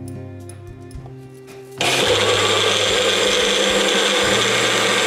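Magic Bullet personal blender motor switching on about two seconds in and running steadily at full speed, pureeing cooked tomatoes and carrot into soup.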